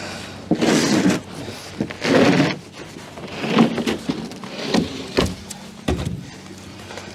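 A plywood sheet scraping and sliding over the ice in irregular strokes, with two dull thumps near the end as it is lifted and handled.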